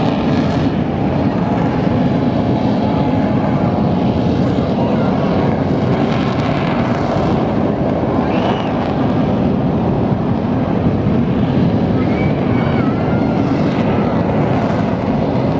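Jet aircraft flying over, a loud steady roar with no clear rise or fall.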